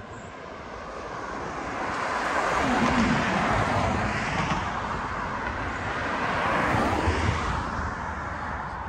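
Motor traffic passing on a street: the rushing noise of vehicles swells and fades as one goes by about three seconds in and another about seven seconds in.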